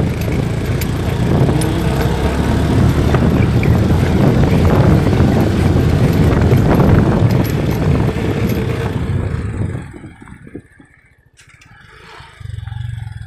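Motorcycle engine running under load as the bike rides over a rough, stony dirt track, with loose stones clattering under the tyres. About ten seconds in the engine sound drops away sharply, with a brief low engine swell near the end.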